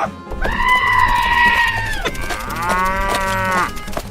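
Cow mooing: two long calls, the first holding steady and then dropping at its end, the second shorter, over a low pulsing beat.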